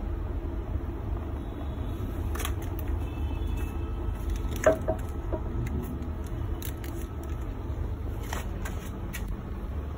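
A burning JanSport backpack crackling, with scattered pops and a sharper pop about halfway through, over a steady low rumble.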